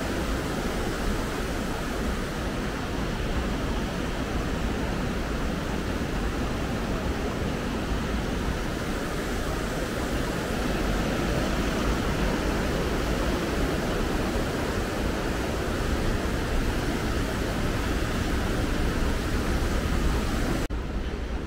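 Mountain stream rushing over rocks and small cascades, a steady rushing noise. Near the end it changes suddenly to a duller rush.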